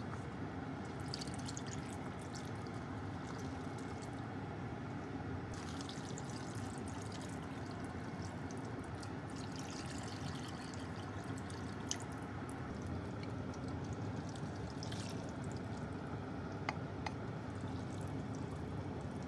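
Liquid soup base and then water poured in a stream into a cast-iron pot packed with raw vegetables, tofu and chicken, splashing onto the ingredients, over a steady low hum. A few light clicks later on.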